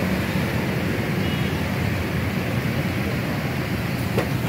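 Steady low roar of outdoor street noise with traffic, and a single light metallic clink near the end.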